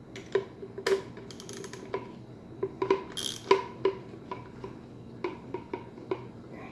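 A hand socket ratchet on a string of extensions and a 7/32 Allen bit, making irregular sharp metal clicks and clinks, each with a brief metallic ring.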